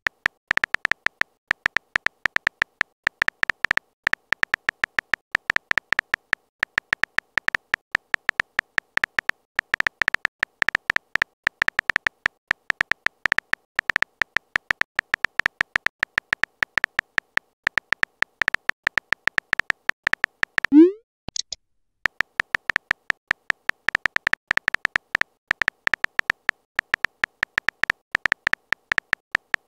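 Texting-app keyboard sound effect: rapid electronic key clicks as a message is typed letter by letter. It pauses about two-thirds of the way through for a quick rising swoosh, the message-sent sound, and then the clicking resumes for the next message.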